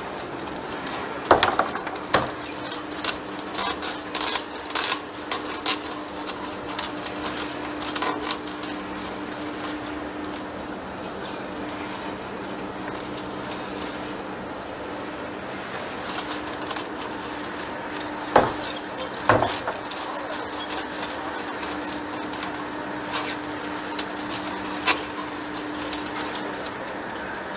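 Heavy-duty face lathe cutting a steel shaft: a steady machine hum with irregular sharp metallic clinks and ticks as curling hot chips break off the tool and fall, thickest in the first several seconds and again about two-thirds of the way through.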